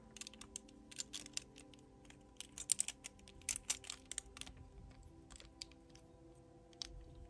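Hard plastic crystal puzzle pieces clicking and tapping against each other and against fingers in quick irregular clusters as the assembled pirate ship is handled and the rudder piece is fitted into place.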